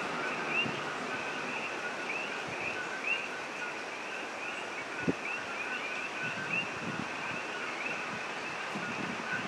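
Outdoor ambience: a steady rushing hiss under a constant chorus of small animals chirping, several short high calls a second, with a single sharp thump about five seconds in.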